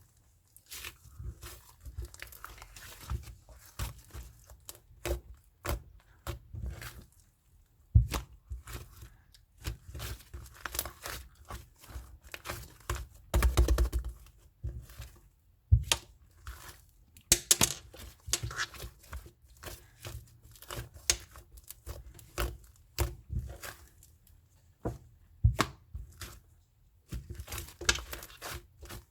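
Slime being handled by hand: irregular crackling and popping clicks as it is pressed, stretched and folded, with denser, louder stretches of crackling about thirteen seconds in and again a few seconds later.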